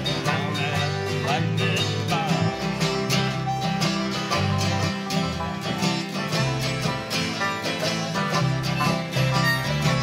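A group of acoustic guitars and a five-string banjo playing a country-blues song together, strummed and picked over a moving bass line.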